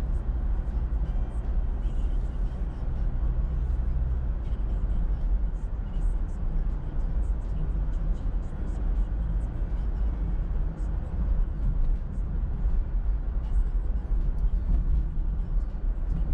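Car driving: a continuous low rumble of engine and road noise, with a steadier hum for the first four seconds before it turns rougher.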